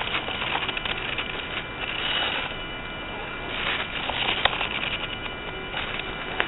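Scale RC crawler truck driving, heard through its own small onboard microphone: a steady electric motor and drivetrain hum with uneven bursts of gritty crunching, the strongest about two seconds in and around four seconds in.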